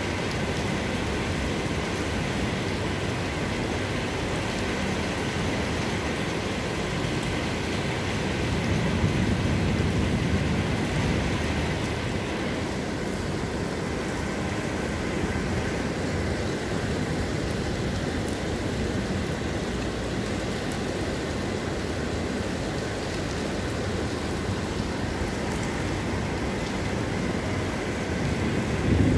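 Heavy rain falling steadily. A low rumble swells about eight seconds in and fades again, and another louder rumble, thunder, begins right at the end.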